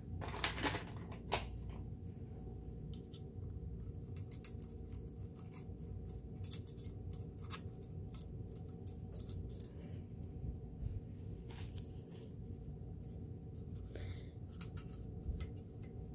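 A small cleaning brush or tool scraping and clicking against the metal needle-bar mechanism of a Kenmore 158 sewing machine as it is cleaned. The clicks are light and irregular, several a second.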